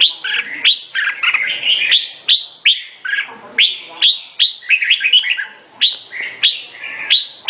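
Red-whiskered bulbul singing loudly: sharp falling notes about twice a second, mixed with quick warbling phrases.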